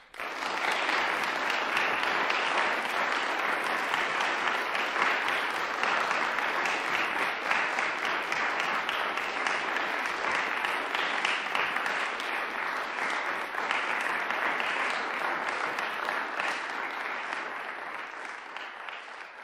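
Audience applauding at the close of a performance; the applause breaks out suddenly after a brief silence and dies down slightly toward the end.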